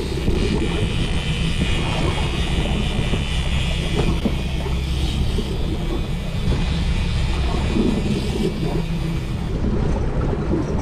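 Motorboat engine running steadily at trolling speed: a low, even hum with a hiss of wind and water over it.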